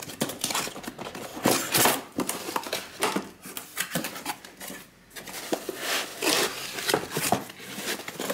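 A cardboard laptop box being opened and handled: flaps and card scraping and rubbing, with irregular short knocks as the box is moved about on the table.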